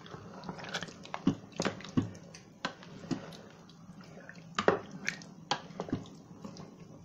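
Wooden spoon stirring raw chicken pieces through thick tomato sauce in a stainless steel pot: wet squelches and irregular knocks of the spoon against the pot, a few a second.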